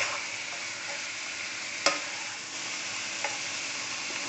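Diced chicken sizzling in a hot wok as it is stirred with a wooden spatula, with a few sharp knocks of the spatula against the pan, the loudest about two seconds in.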